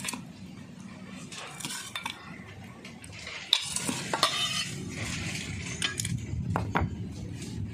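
Stainless steel bowls and a ladle clinking and scraping while curry is served. About three and a half seconds in comes one sharp metallic clink that rings briefly.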